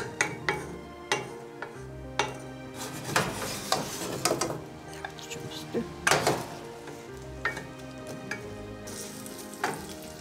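Sliced onion sizzling as it fries in an enamel pot, with a wooden spoon stirring it and knocking and scraping against the pot at irregular moments.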